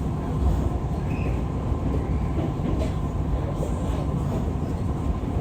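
Metro train running, a steady low rumble of the wheels and car heard from inside the carriage.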